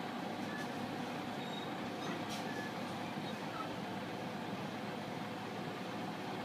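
Diesel engine of a tractor-trailer freight truck running steadily at low speed, with a single click a little over two seconds in.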